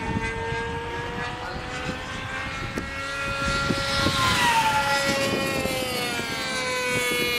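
Electric radio-controlled model airplane's motor and propeller whining steadily in the air, the pitch easing down slightly about halfway through as it passes.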